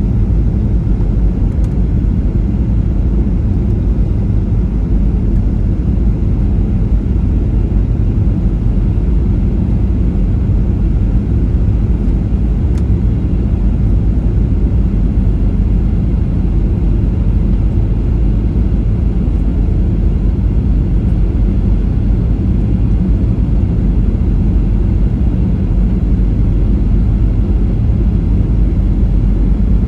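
Cabin noise inside a Boeing 737-800 on approach with its flaps extended: a steady low rumble of airflow and the engines heard through the fuselage.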